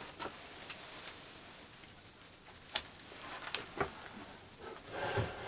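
Scattered small clicks and light knocks as lathe parts are handled and taken up, with a louder scuffing clatter about five seconds in.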